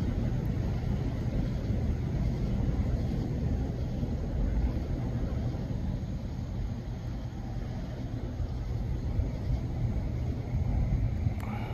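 Car engine and tyres giving a steady low rumble with a constant hum as the car moves slowly off down the street.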